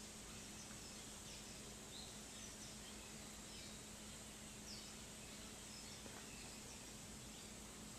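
Faint, scattered short high chirps of small birds nesting in the roof rafters, a few a second at most, over a steady low hum and hiss.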